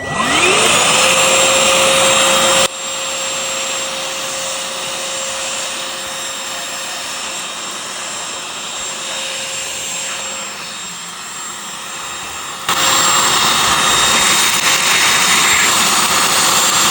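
Oraimo cordless handheld vacuum cleaner switching on, its motor spinning up with a rising whine, then running steadily. About three seconds in it becomes quieter and stays so for about ten seconds, then runs louder again near the end.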